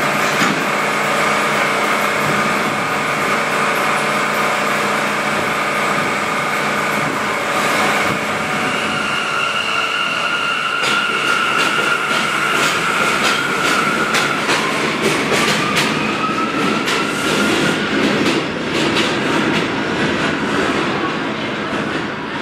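A Bombardier R179 subway train pulling out and running past: its motors whine in steady tones that step up in pitch as it gathers speed. From about eight seconds in, the wheels clatter rapidly over the rail joints as the cars go by, and the sound eases off near the end as the last car clears.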